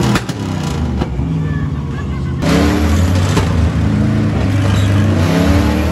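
Monster truck engines revving, their pitch rising and falling again and again, with a louder burst of revving about two and a half seconds in.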